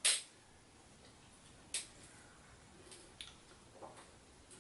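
A few short, sharp metallic clicks, the loudest right at the start and the rest sparse and fainter, from a pipe cutter working on a bicycle fork's steerer tube as the cut finishes.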